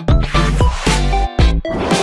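Background music with a steady beat: an upbeat funk-style track with drums and bass.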